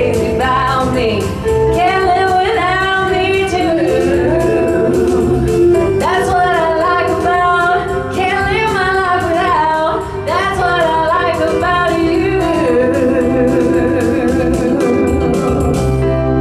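A band playing a pop-rock song while two women sing together, holding long, wavering notes over a steady drum beat. Near the end the voices stop and the band lets a final chord ring.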